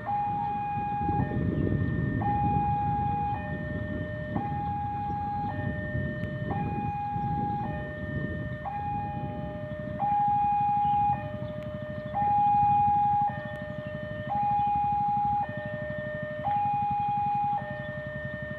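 Railway level-crossing warning alarm sounding, switching between a higher and a lower tone about every second as a train approaches. A low rumble runs underneath and is loudest in the first few seconds.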